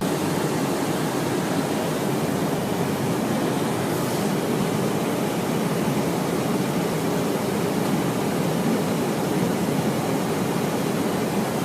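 Steady, even rushing noise of jet aircraft in flight, engine and airflow noise blended into one constant sound with no change in level.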